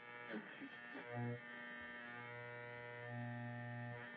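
Quiet intro background music under the logo: a held, steady low tone rich in overtones, with a few short plucked notes in the first second or so.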